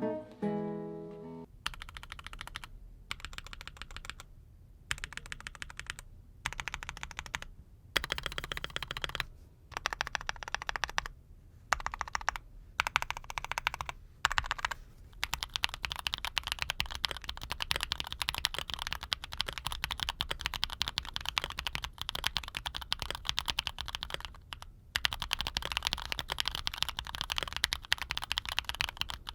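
Stock Createkeebs Luminkey80 mechanical keyboard, with Gateron linear switches and stabilizers that are not yet lubed, being tapped in short runs of rapid keystrokes with pauses between them, then typed on fast and nearly without a break in the second half. A bit of music ends about a second and a half in.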